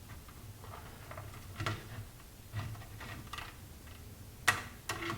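Scattered light clicks and taps of a screwdriver working against a plastic windscreen as a mounting grommet is pressed into its hole. The sharpest click comes about four and a half seconds in.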